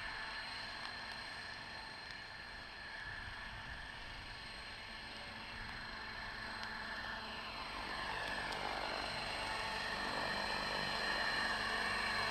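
Electric 600-size RC helicopter (T-Rex 600E in a scale MD500E body) spooling up its rotor. A steady motor hum and blade whir grow louder over the last few seconds as it lifts off.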